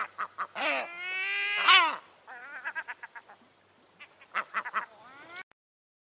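Herring gull calling. A long call rises slightly in pitch about a second in, followed by quick runs of short, repeated notes. The calls stop abruptly shortly before the end.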